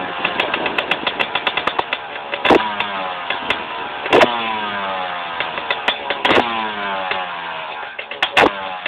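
Brand-new 2006 Suzuki RM250's two-stroke single-cylinder engine running, its throttle snapped four times about two seconds apart. Each rev winds down over a second or two, with fast crackling at idle in between.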